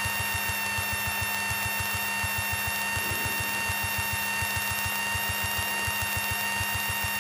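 Piper Tomahawk's four-cylinder Lycoming engine and propeller droning steadily in cruise, heard in the cockpit, with a steady high-pitched whine over it.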